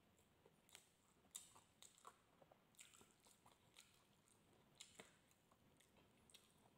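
Faint close-up chewing and crunching of crispy lechon pork skin and meat, with irregular sharp crackles and mouth clicks.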